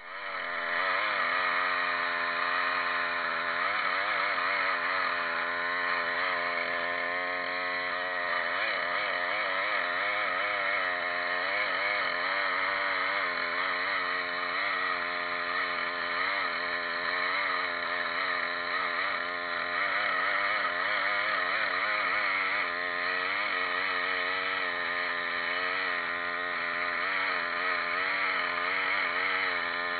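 Two-stroke chainsaw running steadily, its engine pitch wavering slightly as it works.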